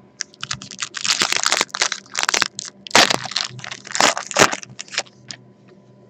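Trading card packaging being ripped open: a quick run of crinkling and tearing of wrapper and box, with the loudest rips about three and four seconds in.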